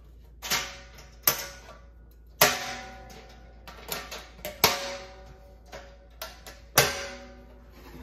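Hinged steel door and latch on a stainless-steel bucket stove being worked by hand: a string of sharp metal clanks and taps, about five loud ones among smaller ones, each ringing briefly through the stainless body.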